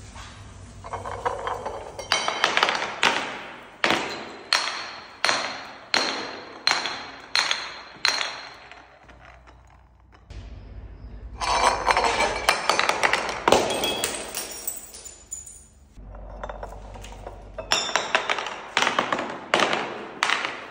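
Bottles tumbling down stone stairs, knocking and clinking on each step with a short ringing note. The knocks come in runs of regular strikes about two-thirds of a second apart, with a denser clatter in the middle.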